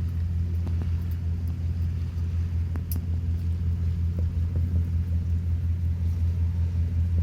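A steady low rumble with a few faint scattered ticks.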